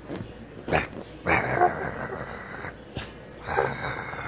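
Small dog huffing and snorting while being played with and rubbed: a few short, sharp snorts and two longer noisy huffs, the first about a second in.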